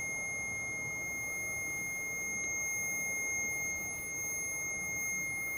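Electronic buzzer of a MEL-8704 REM meter sounding as one steady, unbroken high-pitched tone.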